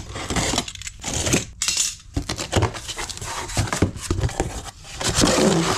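Cardboard box being opened by hand: the cut packing tape and flaps are pulled apart, with a busy run of cardboard rustling and scraping and sharp clicks.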